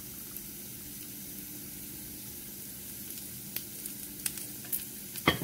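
Diced potatoes frying in a skillet: a steady sizzle with faint crackles, then a couple of sharp clinks near the end.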